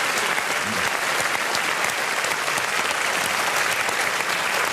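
Audience applauding: a steady wash of many hands clapping at an even level.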